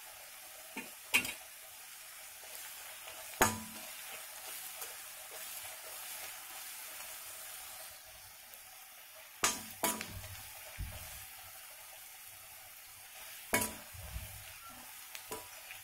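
Onion and spice masala frying in oil in a kadai, with a steady sizzle. A metal spoon stirs it, scraping the pan and giving a handful of sharp knocks against its side.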